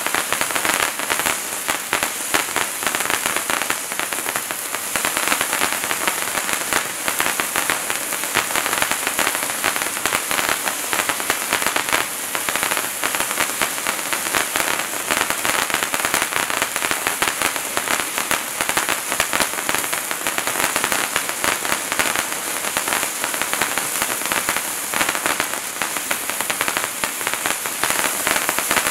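Bright Star Wizards Wands hand-held fountain firework burning steadily: a dense hiss of spraying sparks with fine crackling throughout.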